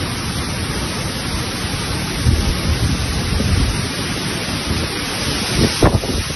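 Heavy rain and gusting wind in a violent thunderstorm: a loud, steady hiss with low rumbles swelling a few times, the strongest near the end.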